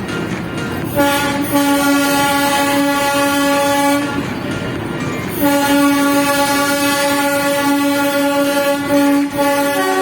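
Darjeeling Himalayan Railway toy train's horn sounding two long steady blasts of about three and four seconds with a short break between them, then a higher-pitched blast starting near the end.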